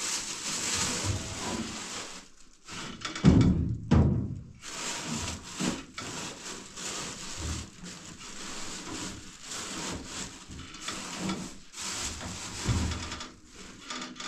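Things being handled inside a gas stove's oven: rustling and rubbing with a few knocks, the loudest about three to four seconds in.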